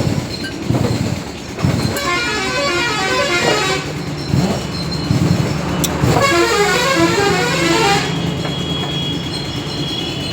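Road traffic with vehicle horns sounding: long, shifting multi-tone horn blasts, twice, over a steady engine drone.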